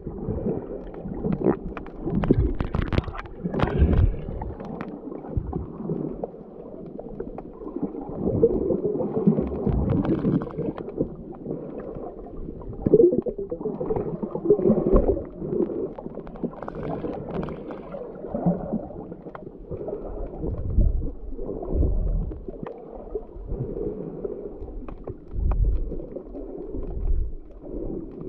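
Sea water sloshing and gurgling around the camera of a swimmer snorkeling, heard muffled and irregular.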